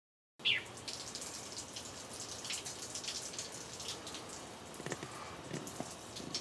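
Water dripping and pattering: a steady light hiss dotted with many small high ticks. A short high chirp sounds right as it begins.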